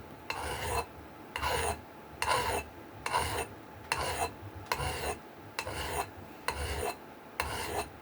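Hand file rasping along the steel edge of an axe head, in even strokes about once a second, nine in all, each stroke with a faint metallic ring.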